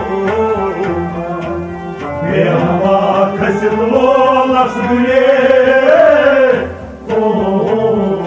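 Kashmiri Sufi devotional song: a wavering melody line, held long through the middle, over a steady hand-drum beat.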